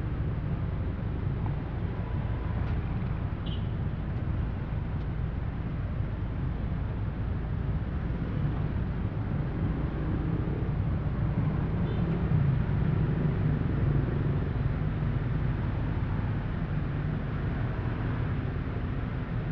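Steady low rumble of traffic idling at a red light, with scooter and motorcycle engines close by, a little louder about twelve seconds in as motorcycles move up past the car.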